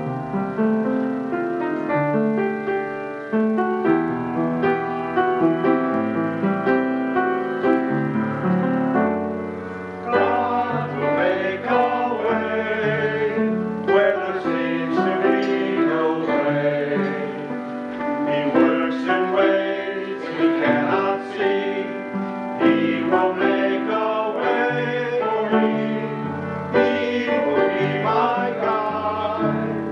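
Church choir anthem with piano accompaniment: the piano plays held chords alone at first, and the choir's mixed voices come in about ten seconds in and sing on with the piano.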